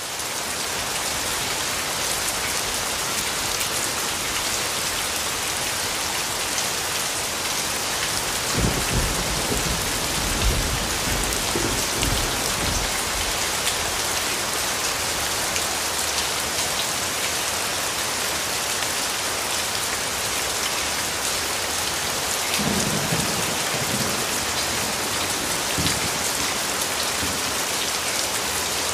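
Steady heavy rain falling on hard surfaces, an even hiss, with low rolls of distant thunder twice: about nine seconds in and again about twenty-three seconds in.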